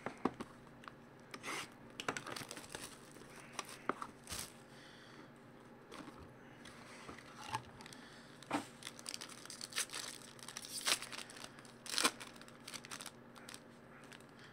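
Plastic shrink wrap being torn and crinkled off a trading-card box: soft, irregular crackles and rips, with a few sharper crackles in the second half.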